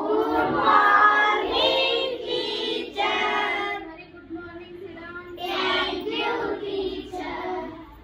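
A young girl's voice singing a melody in long held notes with short breaks between phrases, dropping off near the end.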